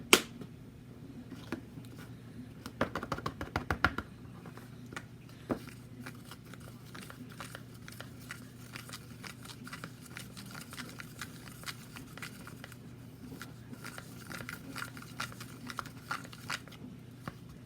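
Stirring a thick shampoo-and-cornstarch slime mixture with water added, giving irregular clicks, scrapes and soft squishing, with a quick run of clicks about three to four seconds in.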